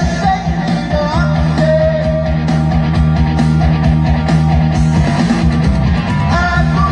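Rock music with a singing voice over guitar and a steady low bass line.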